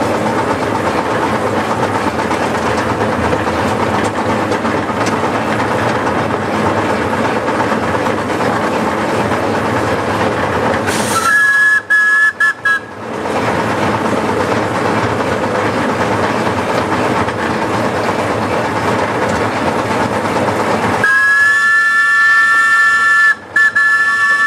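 Miniature steam locomotive running along the track with steady exhaust and running noise, then sounding a chime whistle of several notes: a short blast about eleven seconds in, broken briefly twice, and a long blast over the last few seconds with one brief break.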